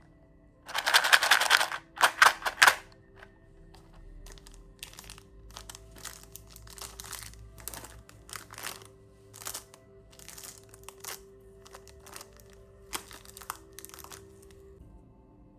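Plastic lollipop wrapper crinkling as it is unwrapped: two loud bursts of crinkling in the first few seconds, then many shorter, softer crinkles and rustles.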